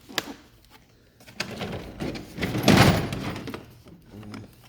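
Tools and plastic cases being shifted and lifted in a metal toolbox drawer: a couple of clicks, then rustling and rattling with one louder scrape and knock about three seconds in.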